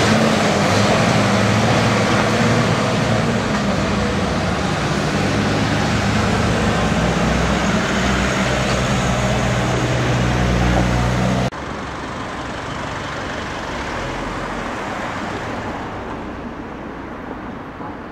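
Heavy diesel vacuum tanker truck running as it drives past and away, its engine a steady low hum over tyre and traffic noise. About eleven seconds in, the sound cuts off suddenly to quieter street traffic that fades out.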